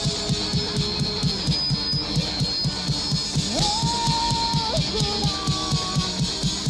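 Rock band playing an instrumental passage: a fast, steady drum beat of about five hits a second under a guitar, which bends up to a held higher note about three and a half seconds in.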